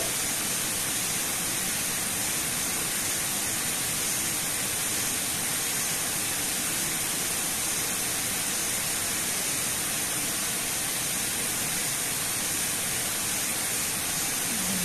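Water pouring down a tall concrete dam spillway into the pool below: a steady, unbroken rushing.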